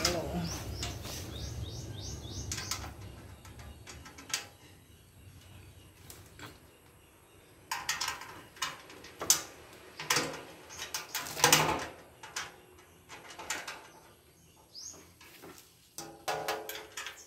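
Handling noise from assembling a white metal dish-drainer rack: clear plastic sheeting crinkling, and the metal frame and leg clicking and knocking as they are fitted by hand, in scattered bursts, loudest about two-thirds of the way through. Birds chirp in short series in the background.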